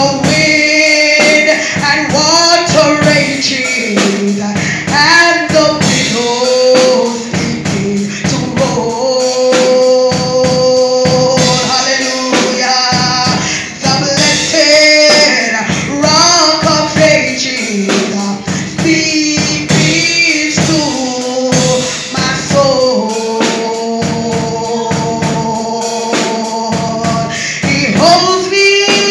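Gospel worship singing by men's and women's voices through a microphone, with long held notes over a steady percussive beat.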